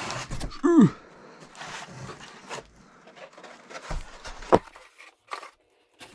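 Packaging being handled while unboxing a cutting machine: rustling, then scattered light knocks, with one sharp knock about four and a half seconds in. Just under a second in, a short vocal sound falls steeply in pitch.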